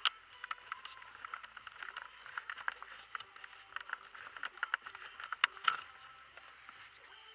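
Irregular light clicks and scrapes of hands handling parts while adjusting a BMW E46's brake light switch. There is a sharp click at the start and two stronger clicks about five and a half seconds in.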